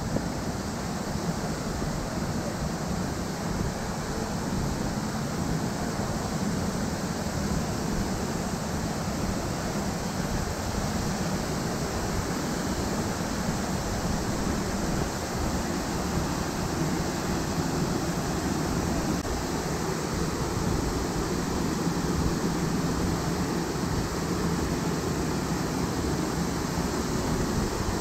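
A tall waterfall and the rocky mountain stream below it rushing steadily, a little louder in the second half.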